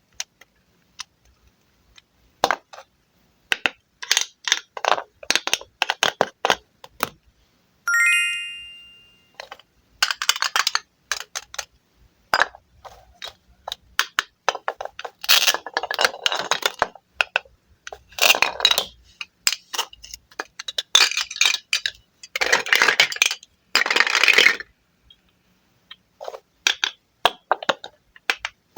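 A knife cutting wooden fruit: scattered taps and clicks, then several crackling, scraping slices. About eight seconds in there is one bright ringing ding that fades away.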